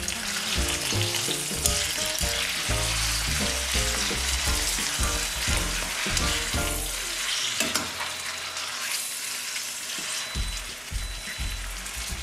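Two tenderloins sizzling as they sear in a stainless steel sauté pan with onions, garlic and dates. Tongs and a fork scrape and knock against the pan as the meat is turned.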